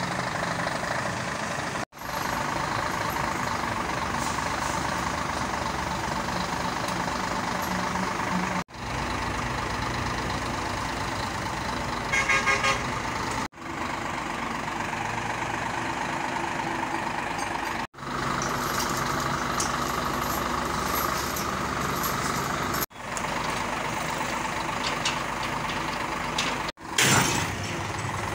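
Scania 124C 420 truck's straight-six diesel running steadily while its loader crane works, the sound dropping out abruptly several times. A short toot comes about twelve seconds in, and a loud sudden burst of noise near the end.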